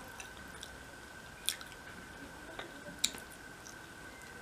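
Close-up sounds of someone eating rice and fish curry by hand: soft squishing and chewing, with a few sharp clicks, the two loudest about 1.5 s and 3 s in. A faint steady high tone sits underneath.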